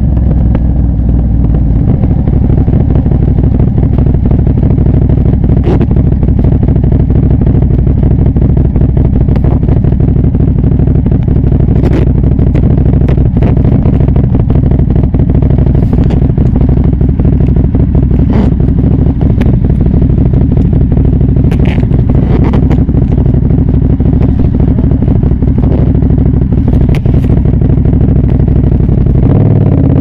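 Aprilia Shiver's V-twin engine idling steadily, with scattered light clicks and rattles; the engine note shifts just before the end.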